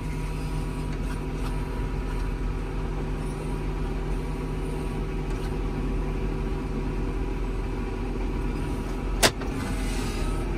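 John Deere tractor engine running steadily, heard from inside the cab as the tractor wades through deep floodwater. A single sharp click sounds about nine seconds in.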